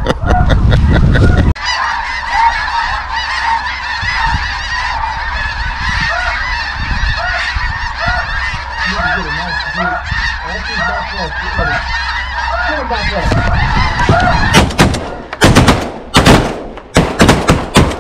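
A large flock of snow geese calling overhead: a dense, continuous clamour of many overlapping honks. About three and a half seconds before the end, a rapid volley of shotgun blasts from several guns breaks out.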